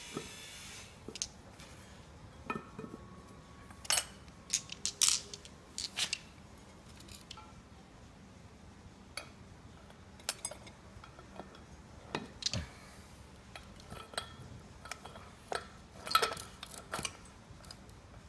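Steel parts of a propeller-shaft joint clicking and clinking as its greased ball cage is worked back into place by hand. The light metallic clicks and knocks come at irregular intervals, with the loudest clusters about four to six seconds in and again near the end.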